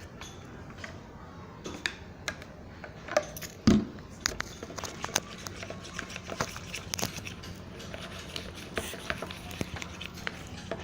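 Glue slime being stirred and worked in a small pot as the activator takes hold and it starts to thicken, giving scattered small sticky clicks and taps. One louder thump about four seconds in.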